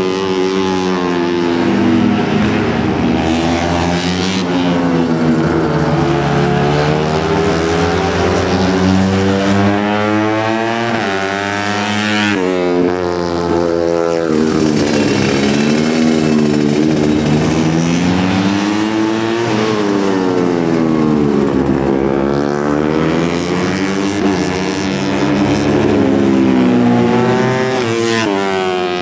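Two-stroke 125 cc underbone race motorcycle engine revving up and down, its pitch rising and falling every few seconds. The sound changes abruptly about twelve seconds in.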